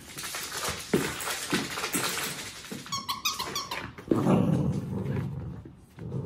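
Two Cavalier King Charles spaniels scuffling and growling at each other. There is a quick run of high squeaks about three seconds in, and the growling is loudest in the second half.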